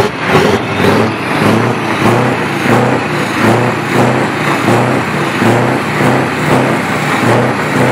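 Scania truck's diesel engine running, its sound rising and falling in a regular pulse a little more than once a second.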